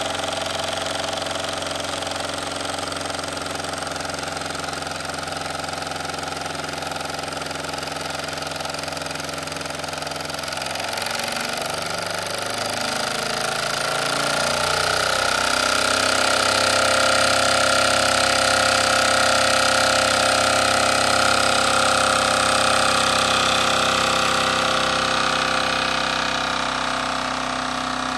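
Wilesco D24 model steam engine running steadily and driving its dynamo, a continuous mechanical running sound. Its pitch shifts about halfway through, and it runs a little louder for several seconds after.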